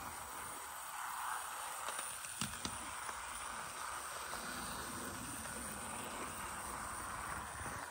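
00 gauge model steam locomotive running along its track: a steady running noise from the small motor and wheels, with a couple of short clicks about two and a half seconds in.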